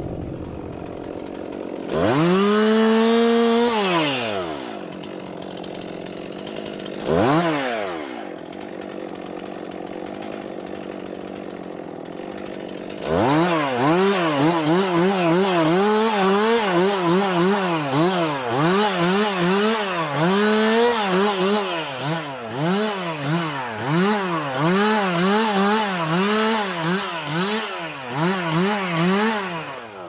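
Two-stroke chainsaw revved up and back down twice, then from about thirteen seconds in cutting with repeated throttle surges, the engine note rising and falling about once or twice a second, as branches are cut off a felled tree.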